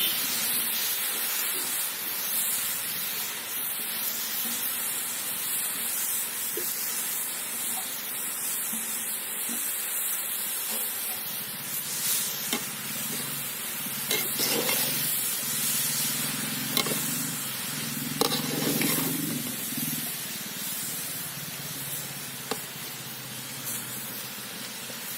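Grated pumpkin sizzling in a hot pan for halwa, stirred with a spoon that scrapes the pan now and then, more actively from about halfway through.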